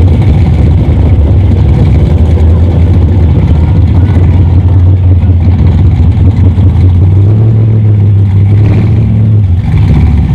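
Engines of two muscle cars, a late-model Chevrolet Camaro and an older Chevrolet Chevelle, idling loudly side by side at a drag-race start line. One engine is brought up to a steady higher pitch about seven seconds in and falls back shortly before the end.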